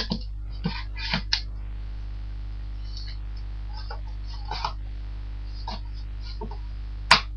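Cardboard box and packaging being handled: scattered short clicks, scrapes and rustles over a steady low hum, with one sharp click near the end.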